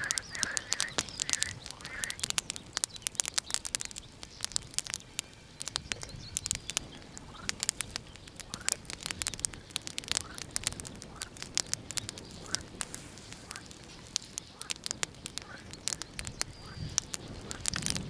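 Dense, irregular crackling clicks, with short bird chirps here and there.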